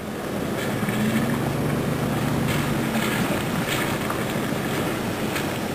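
Steady rushing noise with a low engine hum, the sound of a vehicle moving with wind on the microphone; the hum fades out about three seconds in.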